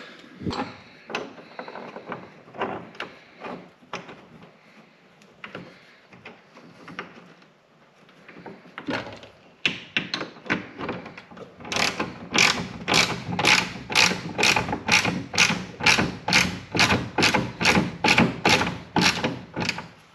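Hand ratchet wrench with a socket tightening a vertical clamp bolt: scattered small clicks and handling knocks at first, then past the middle a steady run of ratchet clicks, about three a second, as the bolt is driven down.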